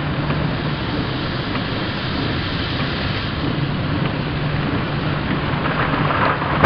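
Steady rain of a thunderstorm with a low rumble underneath; in the last second the noise swells and a thunderclap breaks in right at the end.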